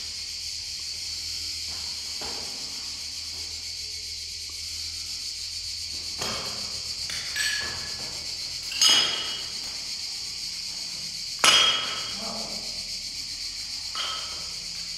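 Steady high-pitched drone of insects from outside, with four or five sharp knocks that ring briefly, the loudest about nine and eleven and a half seconds in.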